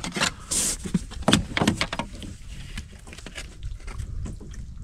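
Scattered knocks, clicks and rustling from handling on a plastic fishing kayak, irregular and uneven, over a low rumble.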